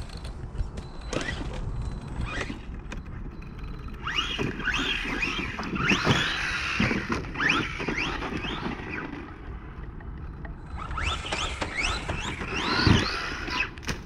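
Electric RC truck running on a 3S battery, its motor whining in quick rising and falling sweeps as the throttle is worked, with a lull in the middle. A loud thud comes near the end as the truck comes down from a jump.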